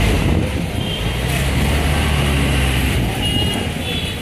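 Busy street traffic noise heard from a moving rickshaw: a steady low rumble under a general hubbub, with a few faint short high tones near one second in and late on.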